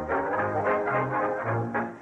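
Music with brass instruments over a bass line that lands a low note roughly every half second.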